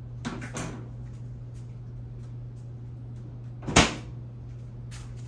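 Eggs being cracked on the edge of a pan: a couple of light taps about half a second in, then one sharp crack a little before four seconds in, over a steady low hum.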